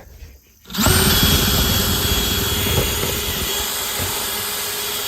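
Power drill starting about a second in and running steadily under load, boring a hole through the wall.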